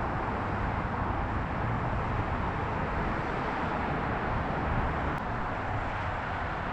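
Steady noise of heavy multi-lane road traffic.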